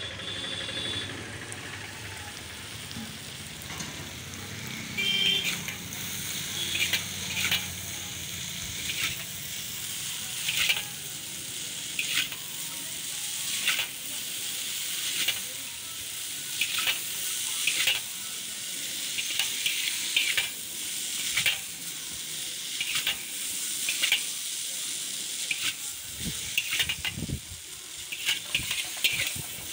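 Chowmein noodles sizzling as they are stir-fried in a large iron wok, with a steady hiss, while a metal spatula and fork scrape and clank against the pan every second or so.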